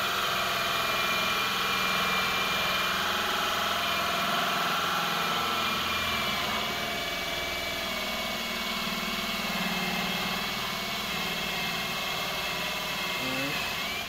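Power drill running a 2 1/8-inch hole saw at steady speed, boring the deadbolt hole through a shed door, with a steady whine. The drill stops near the end.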